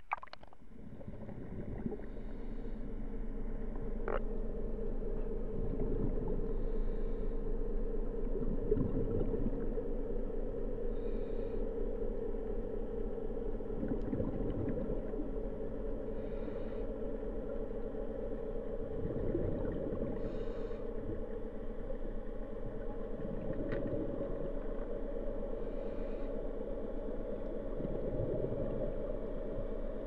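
Underwater sound through a camera held below the surface: a steady low hum with several held tones, faint short hisses every few seconds, and a sharp click at the very start.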